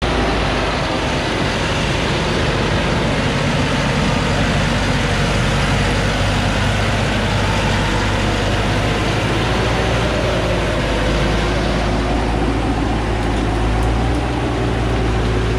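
Diesel engine of a Thaco Forland FC950 4WD truck running steadily under load as the truck crawls through deep mud, with its tyres churning through mud and water.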